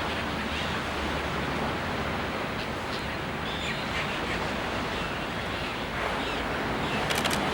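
A steady rushing noise like surf or wind, with a few faint short bird chirps over it and a quick run of sharp clicks near the end.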